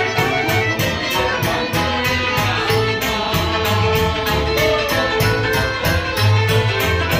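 Live Ukrainian village folk band playing a lively dance tune on fiddle, button accordion, double bass and a large drum, with a steady quick beat of about four strokes a second.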